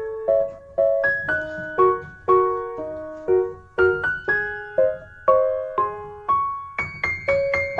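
Background piano music: a gentle melody of single notes struck about twice a second, each ringing and fading.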